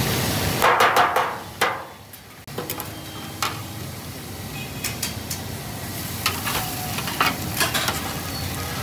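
Fish frying in hot oil, a steady sizzle, with loud metal clattering of utensils about a second in. The sound dips briefly around two seconds in, then the sizzling carries on with scattered clinks.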